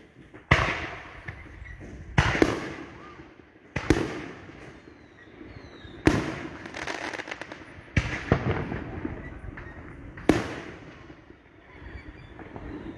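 Fireworks going off: about seven sharp bangs, one every second or two, each trailing off in a fading echo.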